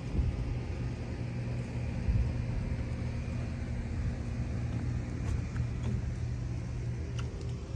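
Steady low rumble of an engine running at a constant pitch.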